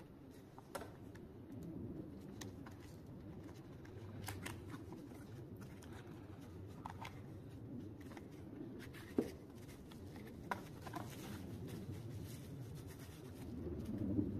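A small cardboard knife box being slit open and unpacked by hand: scattered scrapes, rustles and small clicks of cardboard and plastic wrapping, with a sharper click about nine seconds in, over a low steady background rumble.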